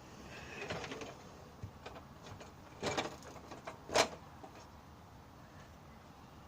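A few scattered knocks and rattles from a small bike being moved and set back in place, the two loudest about three and four seconds in.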